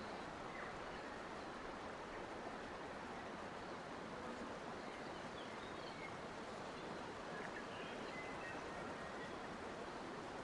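Steady rush of flowing water, with faint, brief bird chirps now and then.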